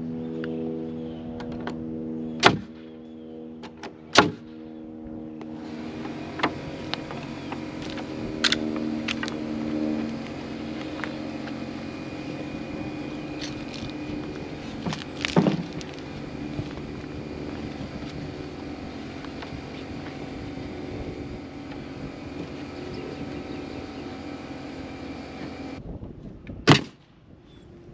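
Pneumatic framing nailer firing: a few sharp, very loud shots as nails are driven into the wall studs, over a steady mechanical hum. Two shots come close together in the first few seconds, one near the middle and one near the end.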